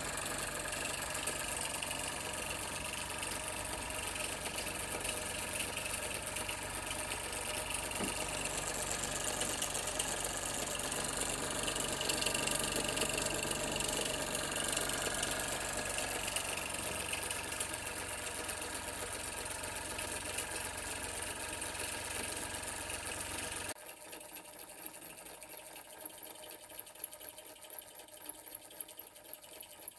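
TTB O2 toy steam engine running fast: a steady mechanical clatter with a constant hiss of steam. About 24 seconds in the sound drops to a quieter rapid ticking of the belt-driven toy saw working through a toothpick.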